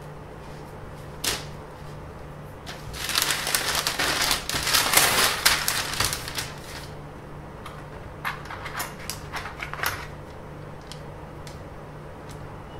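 Paper and a flexible curve ruler being handled on a workbench: a few seconds of paper rustling, then scattered light taps and clicks as the ruler is set down and pressed into shape on the sheet.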